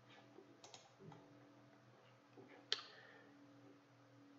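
Near silence with a few faint computer mouse clicks, one sharper click about two and a half seconds in.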